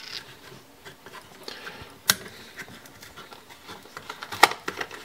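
Plastic screw caps on cartons of shelf-stable milk being twisted open and handled: light rustling with a few sharp clicks, the loudest about two seconds in and again near the end.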